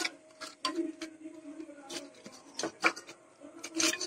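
Scattered rubbing, scraping and clicking from hands handling small plastic lamp parts and wires, over a faint steady low hum.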